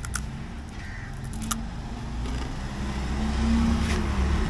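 Road traffic: a motor vehicle's engine growing louder as it approaches and passes close by, its pitch swelling and then dropping near the end. Two sharp clicks, one at the start and another about a second and a half in.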